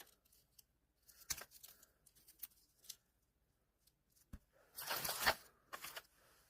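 Packaging being torn open and handled in short rustling spells, with the loudest tearing about five seconds in.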